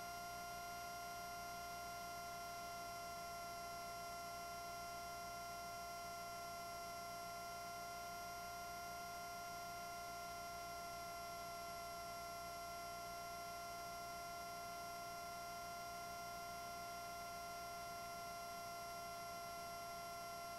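Faint, unchanging whine of several steady tones over a low hum: aircraft noise as it comes through the cockpit intercom and radio audio feed between transmissions.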